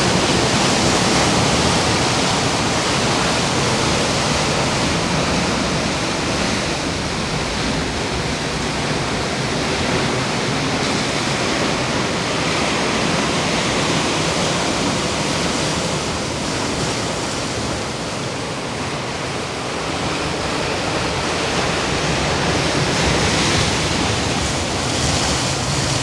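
Ocean surf breaking and washing onto the shore: a steady, loud rush of waves that swells and eases slowly.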